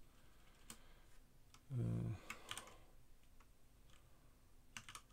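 A few scattered keystrokes on a computer keyboard, typing in a file name, with a short hum from a voice about two seconds in.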